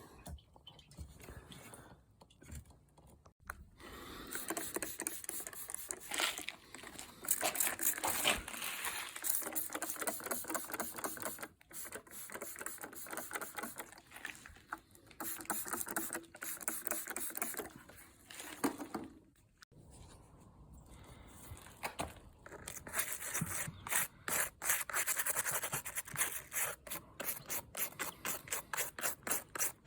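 Hand work on a part, heard as repeated rubbing and scraping strokes, with a few short pauses. Near the end they settle into an even run of about four sharp strokes a second.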